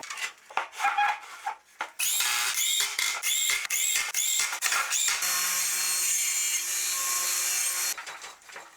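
A few clicks and knocks, then a power drill pulsed in short bursts that each rise and fall in pitch, about two a second, then run steadily for about three seconds, drilling and driving screws into wood.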